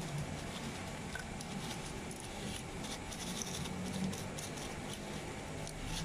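Faint scratching, rustling and small plastic clicks from hands handling the fan's piano-key selector switch block and its wires, fitting it back into the plastic base, over a steady background hiss.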